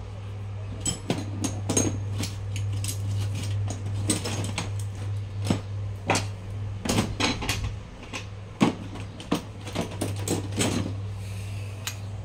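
Repeated sharp knocks and clinks of hard objects being handled and set down on a work table, over a steady low hum.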